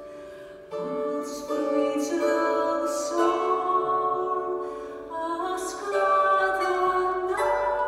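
A woman singing slow, held notes while plucking a Ukrainian string instrument, with a few brighter plucked strokes ringing over the sustained accompaniment. Her voice comes in less than a second in.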